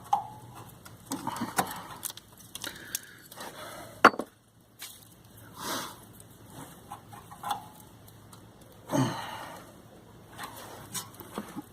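Hand tools and a removed body-mount bolt being handled under a vehicle: scattered light clicks and scrapes, with one sharp knock about four seconds in. A person breathes heavily twice while working.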